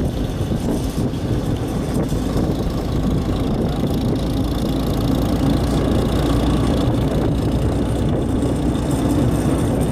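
A tractor's engine running steadily as it tows a wooden-sided passenger wagon along pavement, with the rumble of the wagon rolling underneath.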